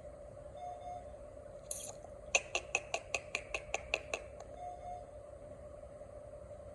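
A quick run of about ten light, evenly spaced clicks, roughly five a second for about two seconds, over a steady hum.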